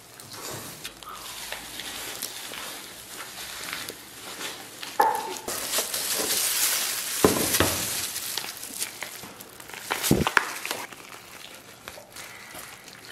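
Crisp roasted skin and meat of a whole roast sheep tearing and crackling as a gloved hand pulls pieces off the carcass, with a few sharp snaps, the loudest tearing about five to seven seconds in.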